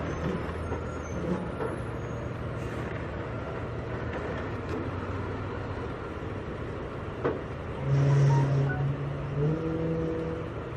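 Volksbus 17.230 EOD bus engine running under way. It gets louder about eight seconds in, and its pitch steps up near nine and a half seconds.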